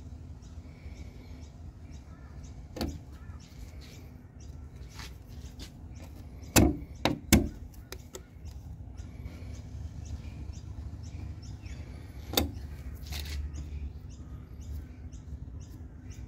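A steady low rumble broken by a few sharp knocks: a single one, then three in quick succession near the middle, then one more about three-quarters of the way through.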